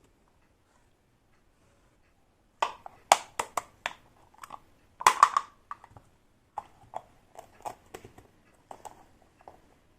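Small toy kitchen pieces being handled, clicking and clattering against each other in a run of sharp, irregular taps that start about two and a half seconds in.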